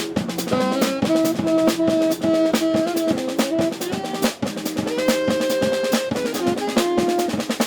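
Music: drums playing a fast, busy beat under a melody of held notes that step up and down in pitch.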